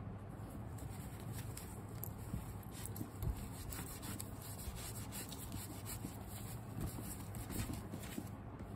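Wet wipe rubbing along a pebble-leather bag strap, with faint scattered clicks as the bag is handled.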